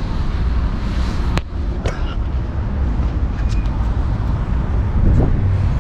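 Steady low outdoor rumble of wind and street noise on the phone's microphone, with handling noise as the camera is carried. One sharp click about one and a half seconds in.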